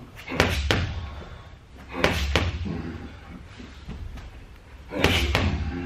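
Dull thuds in quick pairs, three times, a couple of seconds apart: a boxer's feet stamping on gym mats as he steps in with punches while shadowboxing.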